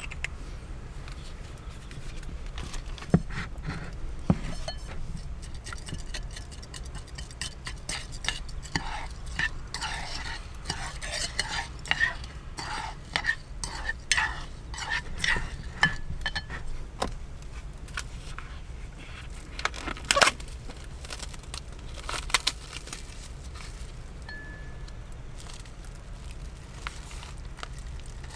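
A utensil stirring and clinking against metal cookware. A quick run of scrapes and light ringing taps comes in the middle, with a few louder knocks, over a steady low hum.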